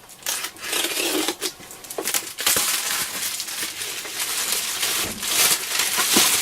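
Packing material being pulled off and unwrapped by hand: continuous rustling, crinkling and scraping of cardboard and wrapping, loudest in the second half.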